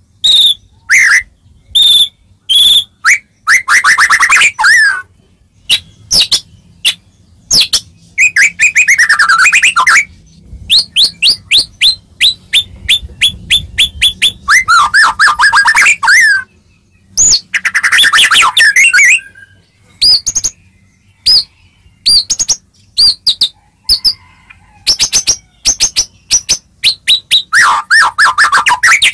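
White-rumped shama (murai batu) singing a loud, varied song: runs of quick sharp chip notes alternate with longer warbled phrases that rise and fall in pitch, with short pauses between.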